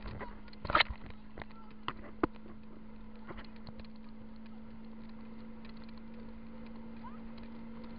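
Water rushing and splashing past an inflatable tube towed behind a ski boat, with a steady low hum throughout. Several sharp knocks and taps come in the first two and a half seconds, the loudest a little under a second in, then the water noise runs on evenly.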